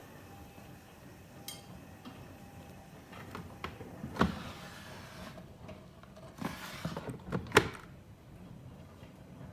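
Washing machine sounds: a few sharp knocks and thumps with short rushing swishes, about four seconds in and again around seven seconds in, over a quiet steady background.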